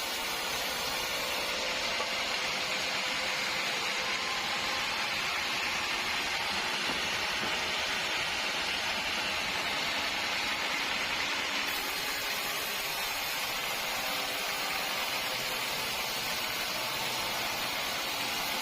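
Steady sawmill machinery noise: an even hiss that holds without strokes, pauses or changes in pitch.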